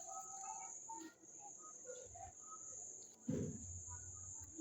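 Crickets trilling faintly and steadily, one continuous high-pitched tone, with a brief rustle about three seconds in.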